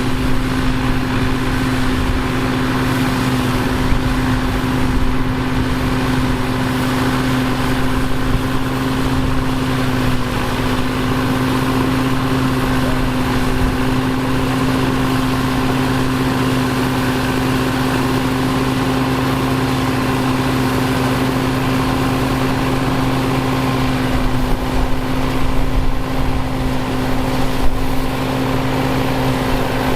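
John Deere 2140 tractor's three-cylinder diesel engine running at a steady speed.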